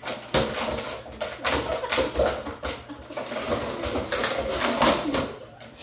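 Australian shepherd puppy pawing and nosing a hard plastic puzzle toy on a hardwood floor: irregular clattering and knocking of the plastic, with claws clicking on the wood.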